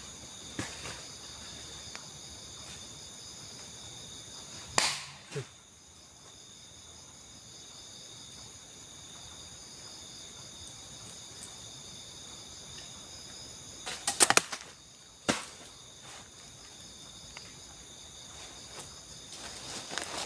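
Steady high insect chorus in the forest, shrill and constant. It is broken by a few sharp knocks or cracks: two about five seconds in, and a quick cluster about fourteen to fifteen seconds in.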